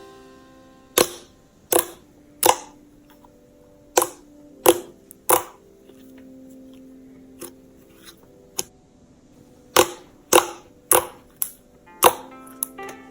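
Slime being squeezed and poked, giving sharp, loud popping clicks as trapped air bursts, about fifteen of them at irregular intervals, some in quick pairs. Faint background music with held notes runs underneath.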